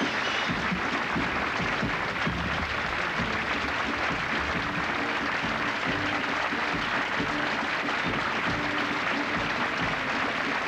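Theatre audience applauding steadily, with the orchestra playing faintly underneath.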